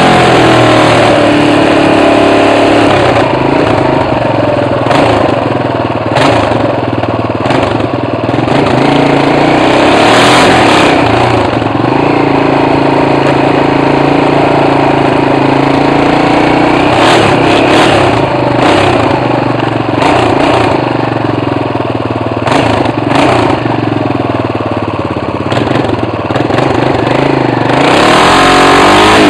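BMW F 650 motorcycle engine running with no exhaust fitted, very loud and raw, revved up and down over and over with the pitch rising and falling, and a few sharp crackles in between.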